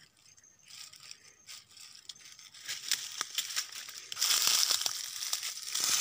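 Dry leaves and twigs crackling and rustling as brush is pushed aside and handled, much louder from about four seconds in.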